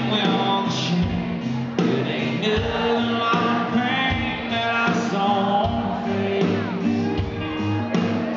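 Live country band playing with a man singing lead, over acoustic guitar, bass and a steady drum beat.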